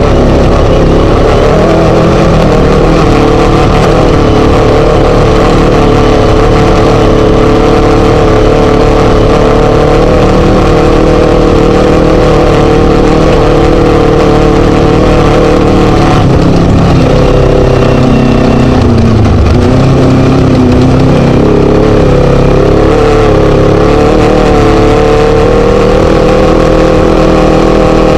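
Class 1 desert race buggy's Scat V4 engine running hard at speed. About two-thirds of the way through, the engine pitch drops for a few seconds, as on a lift of the throttle, and then climbs back up.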